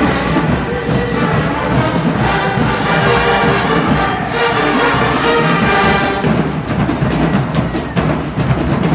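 Marching band playing: the brass section holds full chords over the drums, then about six seconds in the drumline takes over with a run of sharp, quick strokes, about five a second.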